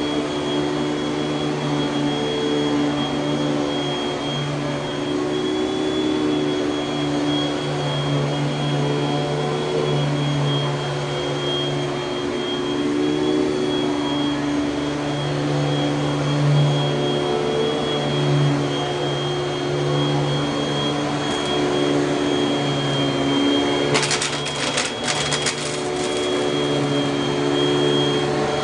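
1984 Panasonic Jet-Flo MC-5116 upright vacuum cleaner running steadily, with a low hum and a thin high whine. A short burst of sharp clicks comes near the end.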